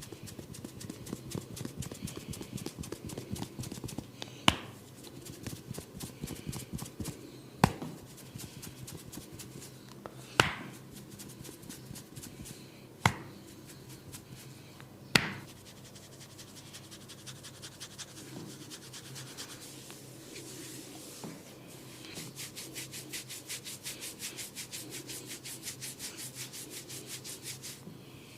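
Hands rubbing and kneading a scalp during a head massage, with five sharp snaps spaced a few seconds apart in the first half. Near the end the rubbing turns into quick, evenly repeated scratching strokes on the head.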